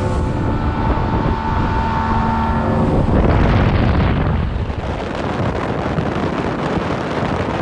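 Evinrude outboard motor running at speed on a small skiff: a steady engine hum over rushing water. About three seconds in the hum gives way to gusting wind noise on the microphone.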